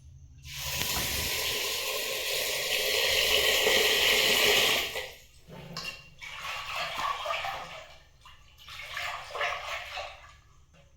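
Water running from a kitchen tap for about four seconds, then stopping, followed by softer intermittent splashing and handling sounds.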